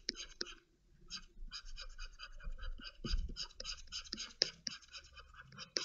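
Quick, repeated scratchy strokes of a stylus on a drawing tablet, several a second, with a brief pause about a second in, as the sculpting brush is dragged over the model.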